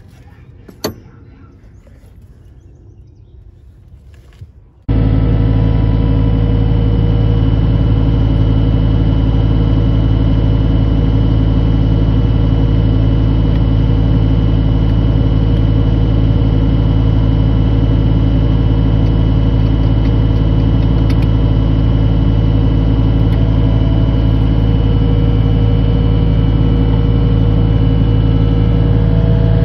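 A vehicle engine running steadily at constant speed, a loud low drone that starts abruptly about five seconds in, after a quiet stretch with a single click.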